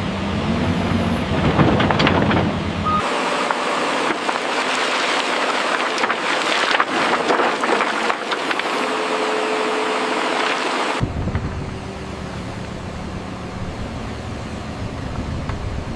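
Excavator at work: diesel engine running with scraping, clanking and knocks of the bucket in soil and rock. The low engine rumble drops out abruptly about three seconds in and returns about eleven seconds in.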